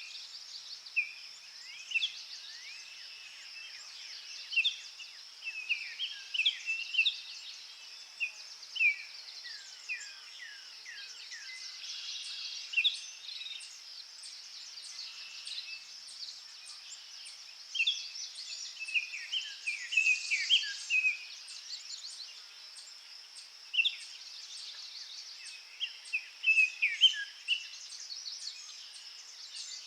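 Small garden songbirds chirping, with many short, sharp calls scattered throughout over a steady high hiss. A run of faint, rapid high ticks sounds through the middle part.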